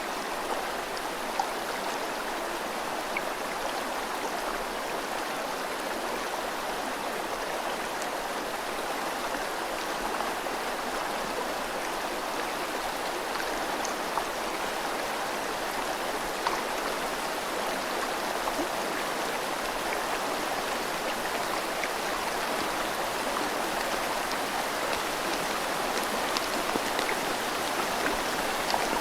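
Steady rushing of a river mixed with falling rain, with a few sharper raindrop ticks now and then.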